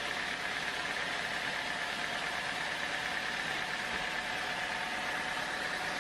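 Sawmill machinery running steadily: an unbroken mechanical noise with two constant held tones.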